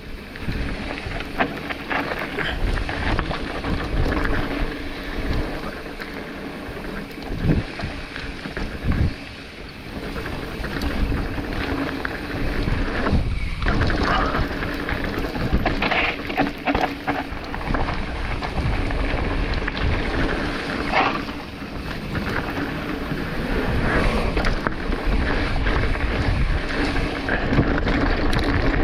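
Wind buffeting the microphone of a mountain biker riding down a dirt trail, with continuous tyre and trail noise and scattered knocks and rattles from the bike over bumps.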